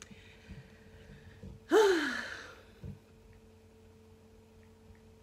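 A woman's breathy sigh a little under two seconds in, its pitch falling, over a faint steady hum.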